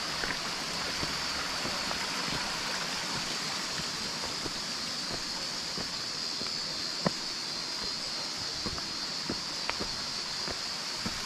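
Mountain stream running beside a trail, a steady rush of water. Scattered short sharp clicks and taps sound over it; the loudest is about seven seconds in.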